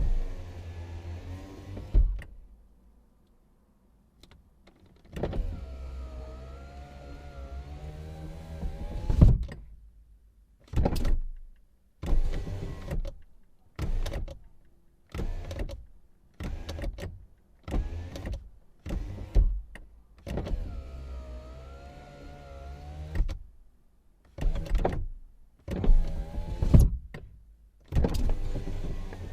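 Car power window motor whining as the glass is driven down and up: two long runs of about four seconds, each ending in a thunk as the glass reaches its stop, with a string of short jogs of under a second between them.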